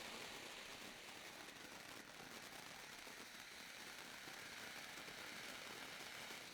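Bengal light flare burning with a faint, steady hiss.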